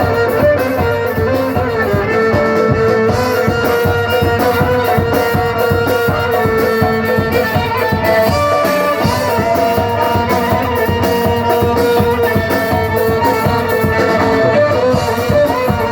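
A band playing instrumental music: a held melody line over a dense, steady drum beat.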